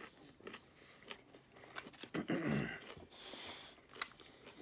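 Close-up eating sounds: chewing and mouth noises, with small clicks of plastic forks picking through food in takeout containers. A louder low sound comes about two seconds in, then a short hiss.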